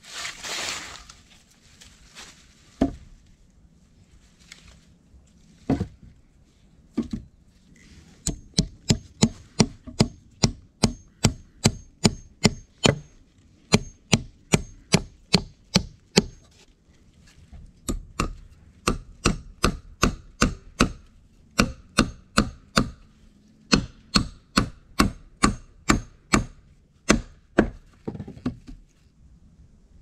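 Axe chopping into a log held down by hand. After a rustle at the start and a few single knocks, the strikes come quickly, about two to three a second, in three runs with short pauses.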